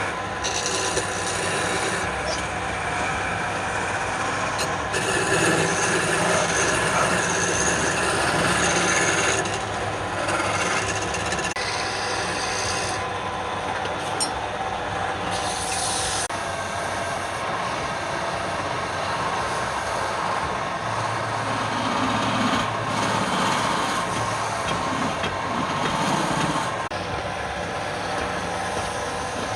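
Wood lathe running while a turning tool cuts into the spinning wood: a steady rasping noise whose texture shifts every few seconds.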